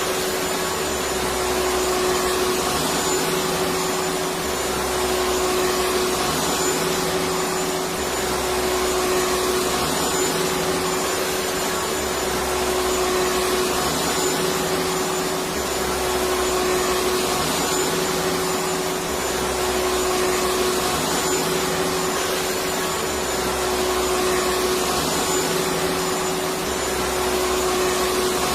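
Electric vacuum cleaner running steadily: a constant whooshing hiss with a steady hum, and a low rumble that comes and goes every two seconds or so.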